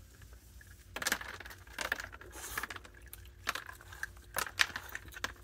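Irregular light clicks and crunches, a few each second, from a raccoon and a baby skunk eating scattered seed and peanuts off a wooden deck.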